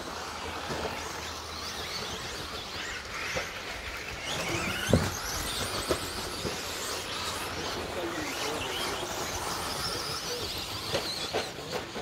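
Electric RC stadium trucks racing on a dirt track: their motors give a high whine that rises and falls with the throttle. A loud thump comes about five seconds in.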